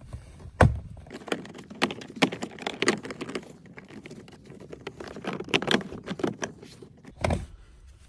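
Plastic interior trim panel on a Lexus IS center console being worked off by hand: its retaining clips click loose and the panel taps and scrapes as it comes away, with a dull knock about half a second in and another near the end.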